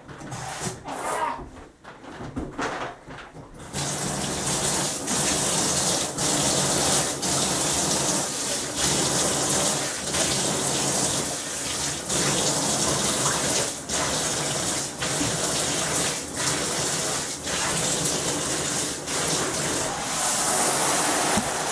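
A few knocks as bathtub faucet handles are turned, then about four seconds in water starts rushing from the tap into the tub and runs on steadily.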